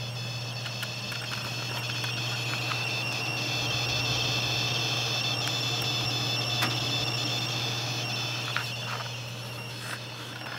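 Corsair AX1200 power supply's coil whine under load: a steady, high-pitched electrical whine of several tones over a low hum. It grows louder toward the middle and eases off near the end, with a few faint ticks.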